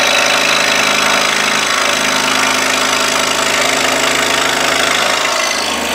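Scroll saw running, its reciprocating blade cutting through a wooden board: a steady, dense mechanical buzz.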